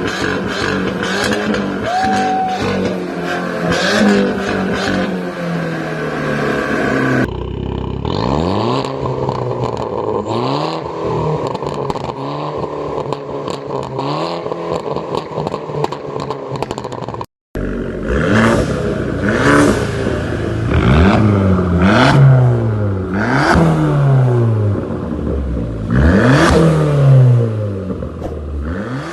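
Alfa Romeo MiTo engine revved over and over, each rev rising and dropping back quickly, in three stretches broken by sudden cuts about a third and two thirds of the way through.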